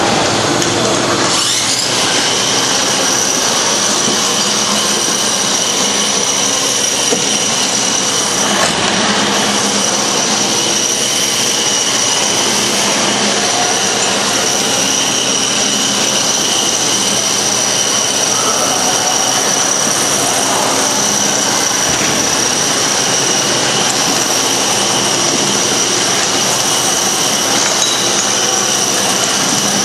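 Electric drive motors of small remote-control combat robots running with a steady high whine over a loud mechanical hum, after a single knock about a second and a half in.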